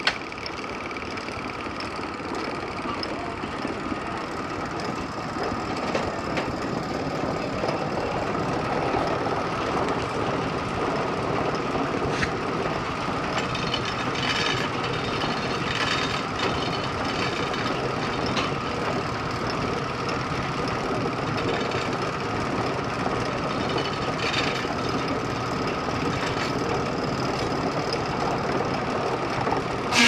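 Steam-powered sawmill running steadily: the steam engine and belt-driven circular saw turn over with a constant mechanical din and a steady tone, with a few short knocks from the carriage and machinery. It grows a little louder over the first several seconds.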